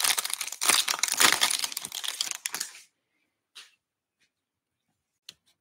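Plastic-foil baseball card pack wrapper crinkling and crumpling in the hands for nearly three seconds, then two faint clicks as cards are handled.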